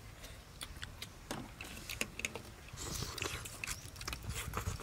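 Faint scattered clicks and crackles of a cooked shrimp being pulled apart by hand and eaten, over a low rumble.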